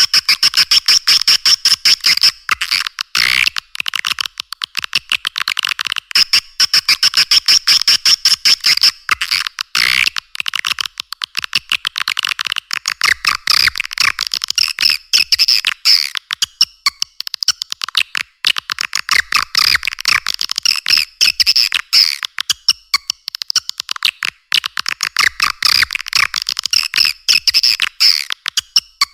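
Recorded swiftlet calls used as a lure sound for swiftlet farming: dense, rapid, buzzy chattering trills pitched high, in long bouts broken every few seconds by brief pauses.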